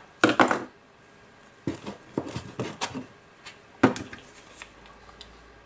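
A scattering of light clicks and knocks from small paint bottles, their caps and a paintbrush being handled and set down on the workbench, the sharpest click a little under four seconds in.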